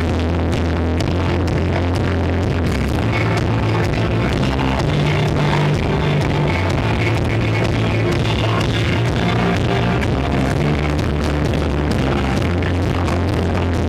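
Instrumental rock band playing live and loud: electric guitars, bass guitar and drums, with the bass moving between held low notes under a dense wall of guitar and cymbals.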